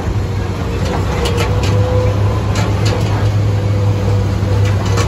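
Steady drone of a moving road vehicle heard from on board: engine hum and road noise, with a few faint ticks.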